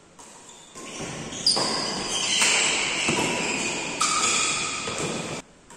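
Badminton rally in a reverberant hall: about six sharp racket hits on the shuttlecock, roughly one a second, each ringing on in the hall's echo, with short high squeaks over them.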